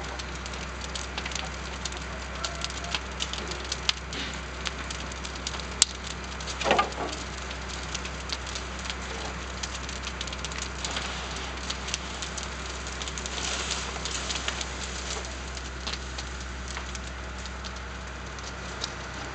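Burning wood crackling and popping, with irregular sharp snaps over a steady hiss. A louder brief sound stands out about seven seconds in, and the hiss swells for a second or so about two thirds of the way through.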